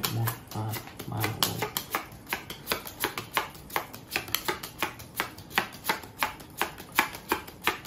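Playing cards being dealt one at a time onto a hard tabletop, a quick, even run of sharp snaps about three a second as the hands are laid out.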